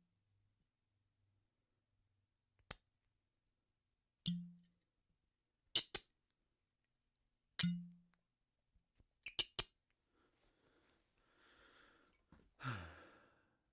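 Bottle cork popping out, repeated as separate sharp pops, some single and some in quick pairs or threes, a few ringing with a short hollow low tone. Near the end comes a short hissing rush that drops in pitch.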